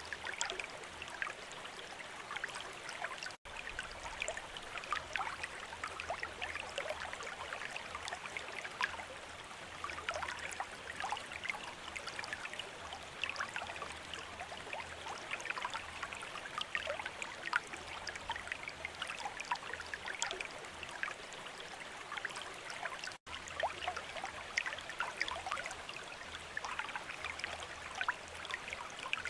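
Water from a bamboo fountain trickling and splashing without a break, dense with small drips and plinks. It cuts out for an instant twice.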